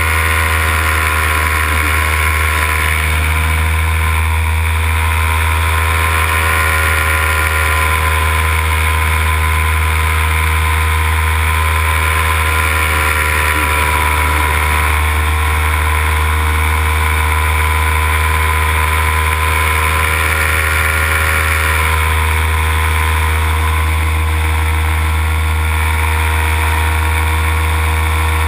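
Paramotor engine and propeller running at a steady cruise throttle in flight, a constant drone that hardly changes in pitch.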